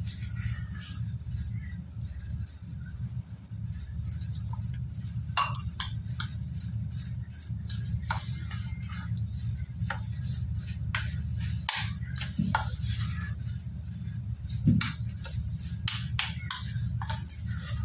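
Metal spoon stirring and scraping damp crushed slate pencil paste in a stainless steel bowl, with frequent irregular clinks and scrapes against the bowl's side. A steady low hum runs underneath.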